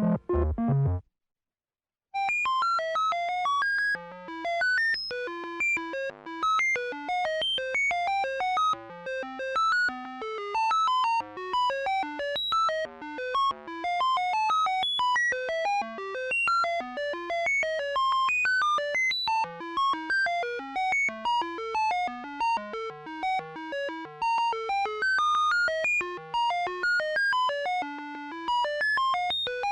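Synthesized digital signal sound effect: a rapid stream of short electronic beeps jumping between random pitches, many a second, like computer data bleeps. It starts after a sound cuts off about a second in and is followed by a second of silence.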